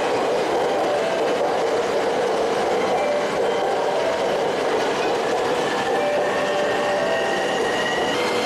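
JR commuter electric train in green-and-orange stripes moving along a station platform: a steady rumble of wheels on rail with faint motor whine tones above it.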